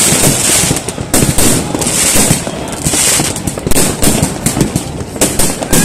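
New Year fireworks and firecrackers going off in a dense, continuous barrage: many sharp bangs in quick succession over a constant crackle.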